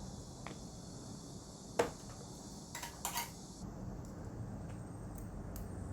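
Scattered light clicks and taps of small hard nail tools and gel polish bottles being handled at a manicure table, the sharpest about two seconds in and a quick cluster around three seconds. A faint high hiss stops suddenly a little past halfway.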